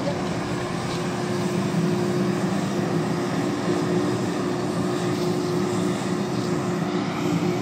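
Ship's deck crane machinery running steadily as it holds a clamshell grab aloft: a constant drone with a steady hum.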